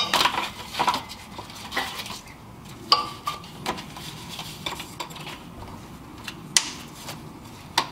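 Plastic wiring-harness connectors and clips being pushed back into place on a car's radiator fan assembly: scattered sharp clicks and light clatter, the loudest about three seconds in and again near six and a half seconds.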